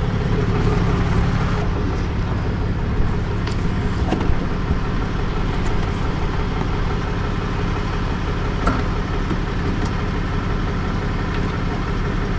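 A vehicle engine running steadily at idle, with a few light clicks and knocks over it.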